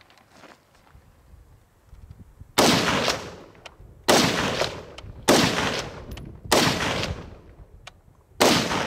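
Five single shots from a DSA Bush Warrior FN FAL rifle in 7.62×51 NATO, fired semi-automatically at an unhurried pace one to two seconds apart, the first about two and a half seconds in. Each shot has a sharp crack and a fading tail lasting about a second.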